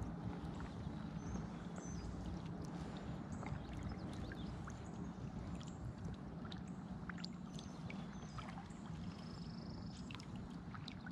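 Kayak being paddled slowly through calm water: the paddle dipping with small splashes and drips, and now and then a light click or knock against the hull.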